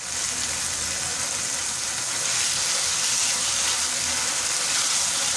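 Dried-fish curry sizzling steadily in hot oil in a frying pan while a spatula stirs it.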